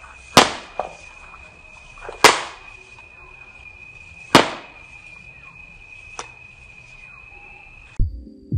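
Bamboo popgun firing fruit balls: three sharp pops about two seconds apart, with a couple of fainter clicks between them, over a steady high-pitched buzz. Music with a beat starts near the end.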